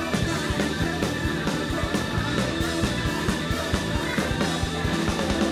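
Loud live band music with a steady, driving beat.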